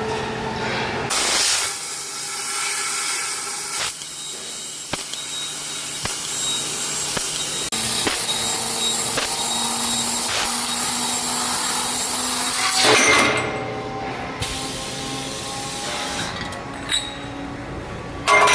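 Fiber pipe laser cutting machines running with compressed air as the assist gas: a loud, steady air hiss from about a second in, which drops off at about thirteen seconds, leaving a quieter machine hum.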